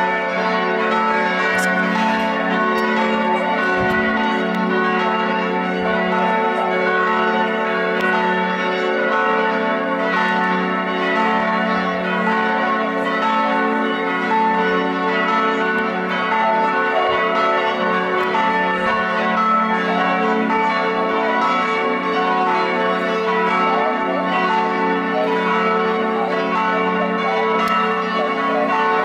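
Church bells ringing continuously, several bells sounding together in a dense, unbroken peal.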